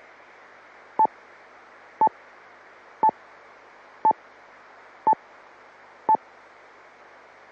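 Steady hiss of an open amateur FM radio channel, with six short beeps at a steady one per second.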